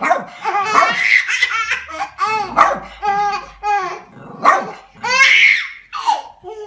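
A baby laughing in repeated bursts while small dogs bark.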